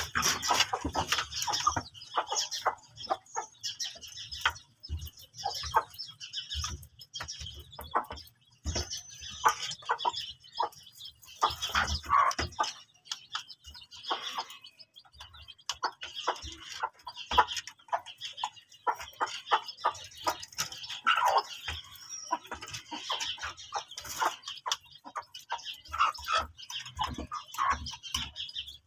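Aseel chickens clucking while they peck food from a bowl, with many quick, irregular taps of their beaks against the bowl.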